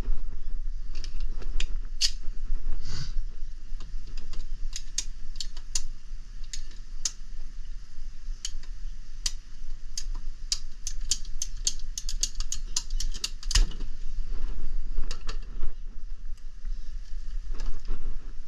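Irregular sharp clicks and snaps of hand tools and small parts being handled, coming thick and fast about ten to fourteen seconds in, over a steady low rumble.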